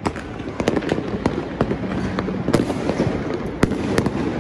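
Many fireworks and firecrackers going off at once across a city: dense, irregular sharp bangs and cracks, several a second, over a continuous crackling din.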